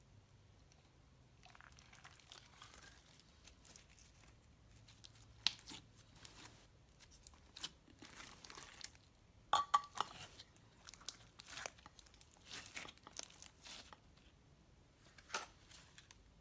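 Clear slime full of foam beads being kneaded and pressed by hand, giving irregular crackles, pops and squishes, loudest about ten seconds in. It stops about a second before the end.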